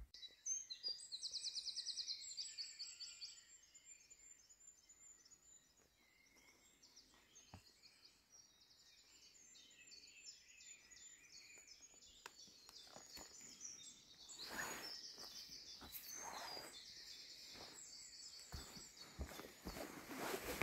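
Faint dawn chorus of small songbirds in a conifer forest: high, quick trills and twittering songs overlapping one another. Over the last several seconds there are close rustling and knocking noises of movement and handling on the forest floor.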